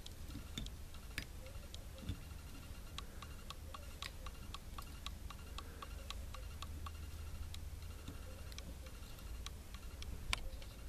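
Faint, regular ticking, roughly three ticks a second and clearest in the middle, over a low steady hum.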